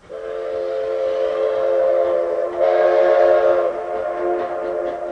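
Steam locomotive whistle of narrow gauge Denver & Rio Grande No. 425, one long blast sounding a chord of several steady tones. It swells louder about two and a half seconds in and eases off near the end.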